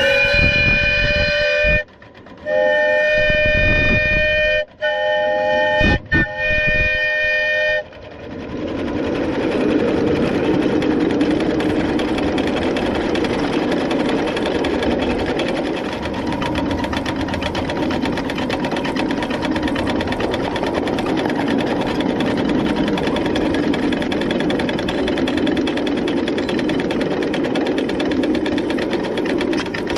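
Steam whistle of a coal-fired 7½-inch-gauge live steam model of a Long Island H-10 2-8-0, several tones sounding together, blown four times in a long, long, short, long pattern. After about eight seconds the whistle stops and the locomotive runs on steadily along the track.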